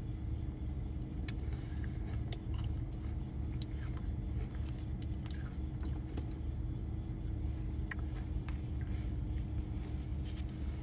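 Steady low rumble of an idling car heard from inside the cabin, with faint scattered clicks and crunchy chewing.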